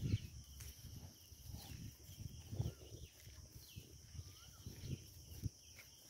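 Faint steady high-pitched insect chorus, like crickets, with soft irregular footsteps on dry soil and light thumps from the phone being carried.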